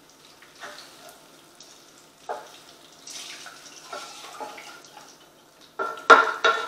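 Hot frying grease being poured off a frying pan: liquid pouring and dripping with small clinks, then a loud metallic clank about six seconds in.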